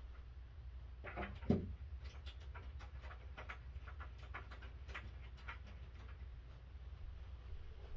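Assembly noises on a wooden crib frame: one sharp knock about a second and a half in, then a run of light clicks, about three a second, as the rail hardware is worked by hand.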